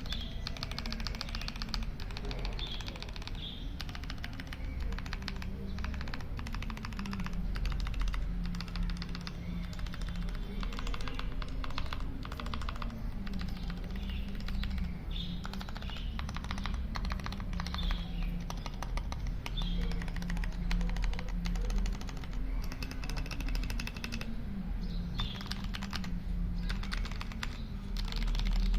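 Continuous fast typing on a Royal Kludge RK61 60 percent mechanical keyboard with linear red switches, a quick run of keystroke clacks. Background music with a stepping low melody plays under it.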